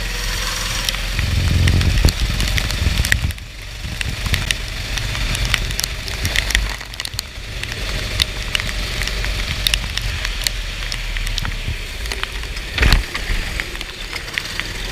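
Heavy rain on the microphone: a steady hiss dotted with many sharp crackling ticks of raindrops, over a low steady rumble.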